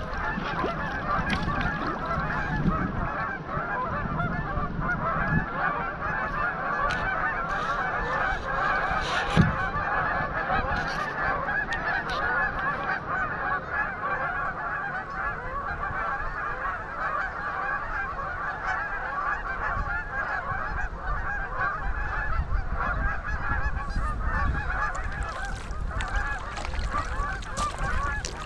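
A large flock of Canada geese honking continuously, many calls overlapping at once. A single sharp knock comes about nine and a half seconds in.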